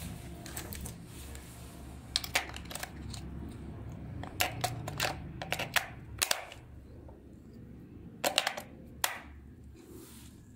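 Sharp clicks and taps of small hard plastic toy parts being handled, coming in irregular clusters, over a low steady hum that drops away about six seconds in.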